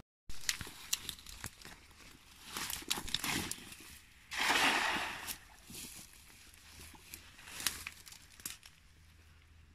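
Cast net rustling and clicking as it is handled and swung, then a loud splashing hiss about four and a half seconds in as the spread net lands on the river's surface. Fainter rustles and a few ticks follow as the line is held and drawn.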